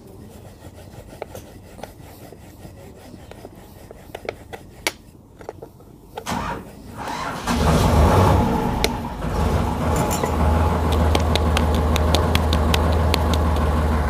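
Faint rubbing and light taps of a rolling pin working dough, then about six seconds in an engine starts and runs loudly and steadily with a low drone.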